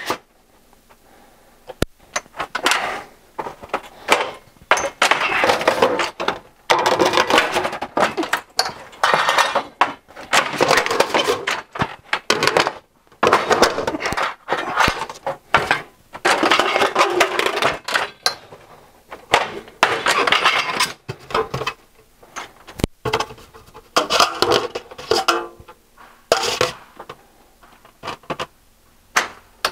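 Van Mark sheet-metal bending brake being worked to form an outside corner post from trim coil: repeated rattling and clinking of the sheet stock as it is shifted, clamped and bent, in irregular bursts, with a couple of sharp clicks.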